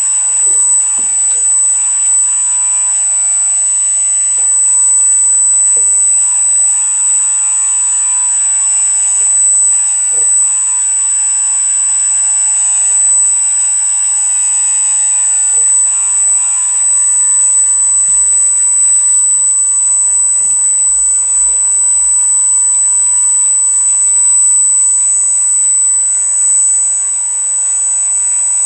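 Small electric hydraulic pump of a radio-controlled skid steer loader running with a steady, high-pitched whine, its middle tones wavering as the hydraulics work the lift arm and forks. A few light knocks sound along the way.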